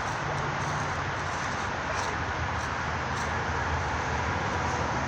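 Steady drone of interstate highway traffic, an even rush of tyre and engine noise with a low rumble underneath.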